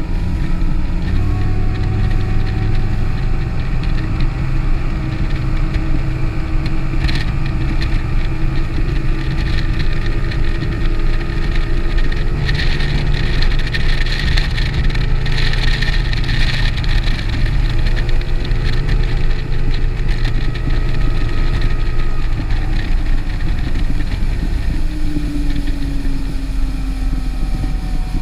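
Boat's outboard motor running steadily under way, its pitch drifting slightly and easing down near the end.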